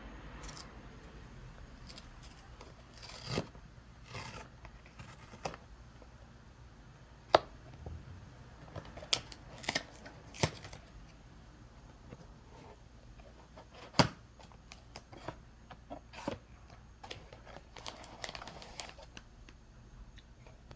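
Packaging being opened by hand: plastic and paper crinkling and tearing in short spells, with a few sharp clicks or snaps.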